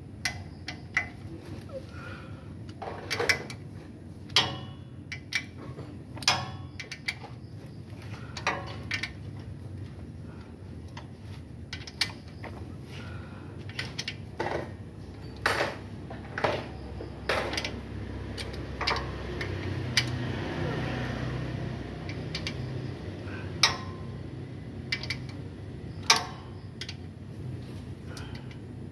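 Metal hand tools and engine parts clinking and knocking, a dozen or so sharp separate strikes. A few seconds of steady rasping noise come about two-thirds of the way through.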